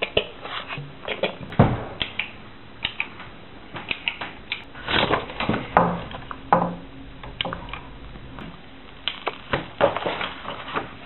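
Irregular clicks, knocks and rustles, like hands fumbling with a camera and its strap, with a few short low hums in between.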